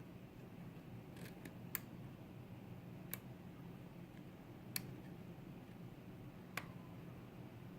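A pin tumbler lock being picked: a handful of sharp, light clicks at irregular intervals from the pick and pins inside the core, over a faint steady low hum.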